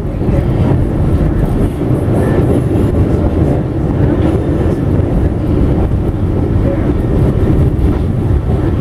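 Loud, steady rumble of an R46 subway car running through a tunnel, heard from inside the car.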